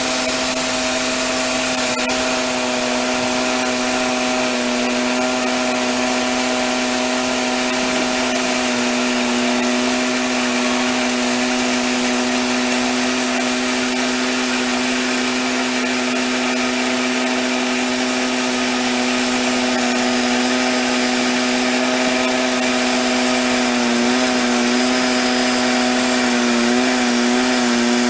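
Wood-Mizer LX150 bandsaw sawmill running steadily with a strong hum and hiss; its pitch dips briefly a few times near the end.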